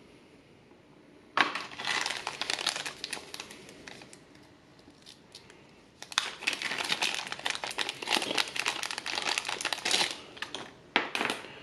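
Small clear plastic bag crinkling as hands handle it, open it and pull a coiled cable out of it. There are two long stretches of dense crackling, the first starting about a second and a half in and the second about halfway through.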